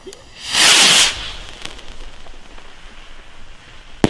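Funke Argento Titanium firework rocket launching with a loud hissing whoosh about half a second long, then, about three seconds later, a single sharp bang as it bursts.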